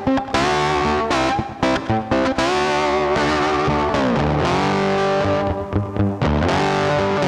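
Background music led by a distorted electric guitar playing a melody, with some notes bent up and down in pitch.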